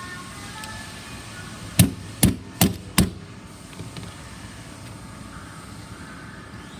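Four sharp hammer taps in quick succession, each a little under half a second apart, driving pivot pins all the way down into a clamp assembly.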